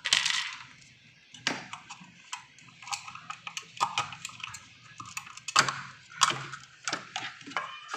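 Flat-head screwdriver prying open plastic locking clips on a refrigerator's compressor relay cover: a run of irregular clicks and knocks of metal on plastic.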